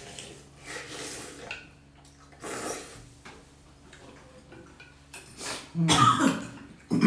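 Noodle soup being slurped from bowls, several short slurps, with a spoon and chopsticks clinking on ceramic bowls. Near the end come louder slurps and a satisfied 'mm'.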